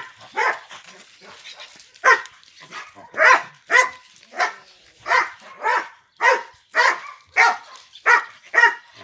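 A dog barking over and over in short barks. After a pause near the start the barks come steadily, about two a second.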